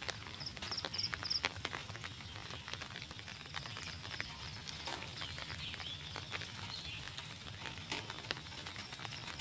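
Steady monsoon rain falling on a flooded pond and the surrounding leaves, with many irregular close drips and taps. A few short high chirps sound about a second in.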